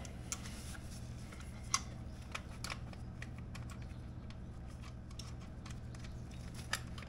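Scattered light clicks and taps of motorcycle exhaust parts being handled as the stock muffler is pulled off the mid pipe, the loudest about two seconds in, over a steady low hum.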